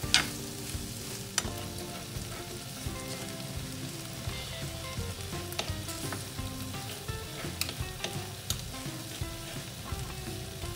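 Chicken pieces sizzling in a hot nonstick frying pan as the last of the water they released cooks off on high heat. Metal spoon and forks scrape over the pan, with a few sharp clicks, as the chicken is turned and pulled apart.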